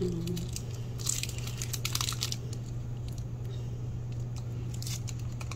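Small clicks and crinkles from handling a 1 mL plastic syringe, in a cluster between about one and two and a half seconds in and once more near the end, over a steady low hum.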